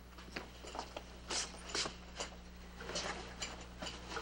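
Faint, irregular footsteps of boots on a wooden floor, with light clicks, over a steady low hum from the old soundtrack.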